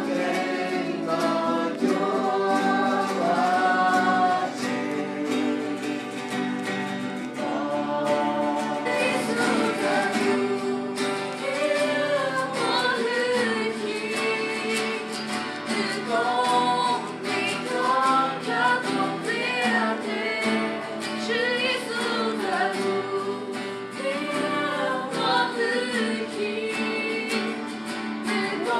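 A small congregation singing a hymn together in Hmong, accompanied by a strummed acoustic guitar.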